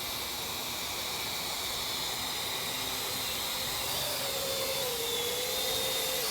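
Parrot AR.Drone quadcopter's electric rotors running close to the ground: a steady whirring hiss with a thin high whine, joined about four seconds in by a lower whine that wavers in pitch as the motor speed changes.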